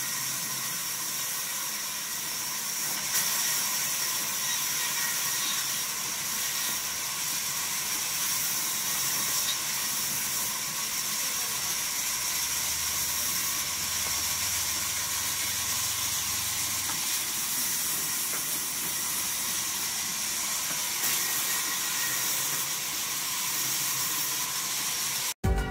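Vertical band saw running and ripping planks lengthwise: a steady high hiss with a faint whine under it, cutting off suddenly near the end.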